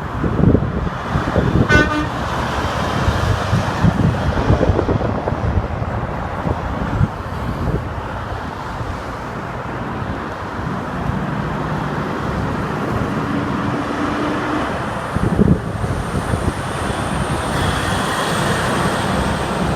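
Steady noise of interstate traffic with trucks and cars passing close by. A short horn toot sounds about two seconds in, and a longer steady tone is held for about a second and a half about two-thirds of the way through.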